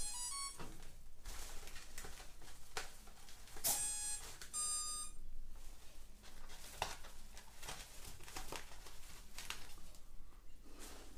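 Electronic beeps: a quick run of short tones at the start, then two longer beeps about four and five seconds in, among light handling clicks.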